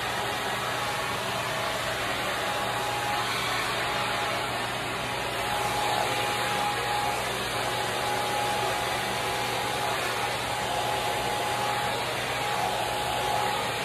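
Handheld hair dryer fitted with a diffuser, running steadily: an even rush of air with a thin, steady whine.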